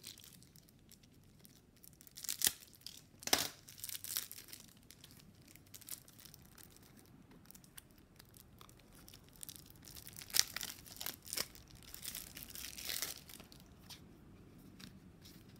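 Wrapper being torn and crinkled off a deck of game cards in short bursts, a few about two to four seconds in and a busier stretch from about ten seconds on.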